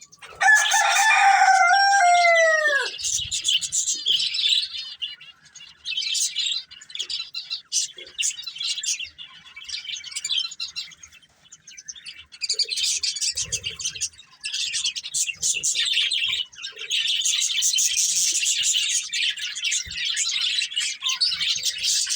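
Budgerigars chirping and twittering continuously in quick, high, short notes. About half a second in, a louder, lower call stands out for about two seconds, bending down in pitch at its end.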